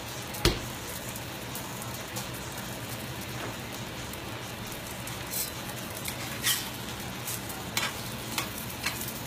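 Spaghetti squash latke sizzling steadily as it fries in oil in a cast iron skillet. A sharp knock about half a second in, then several short scrapes and taps of a spatula in the pan in the second half.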